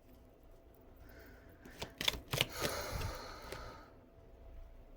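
Tarot cards being handled and shuffled by hand: a few sharp snaps about two seconds in, then about a second and a half of rustling.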